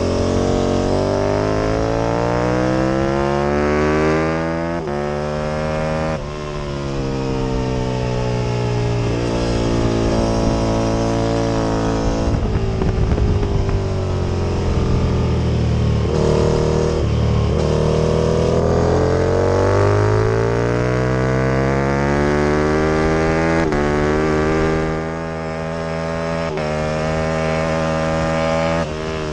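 Aprilia RSV Mille's 998 cc V-twin engine at racing speed. Its pitch climbs and drops abruptly with each quick upshift. In the middle it falls away as the bike slows into a corner, then climbs again through the gears.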